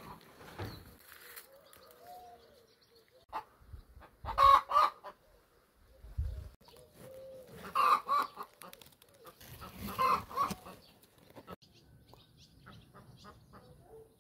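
Chickens clucking and calling, with three louder calls about four and a half, eight and ten seconds in.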